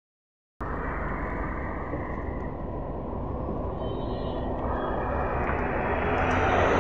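After a half-second gap, a BKM 321 trolleybus pulls away from the stop right past the microphone. Its drive and tyres make a steady low hum over street noise, growing louder toward the end.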